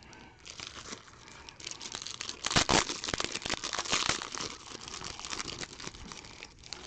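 Trading card pack wrappers being torn open and crinkled by hand, with irregular crackling and sharp rustles, loudest about two and a half seconds in.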